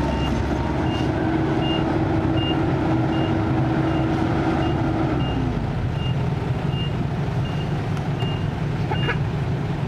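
Heavy diesel machinery running steadily at a loading site, with a backup alarm beeping about every 0.7 s that stops about nine seconds in. A steady hum over the engine falls away about halfway through.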